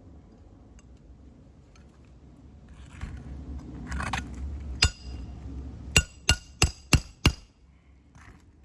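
Hammer striking a roof snake to drive roofing nails in under a lifted shingle. There is scraping and rustling, then one sharp metallic blow, then five quick ringing blows at about three a second.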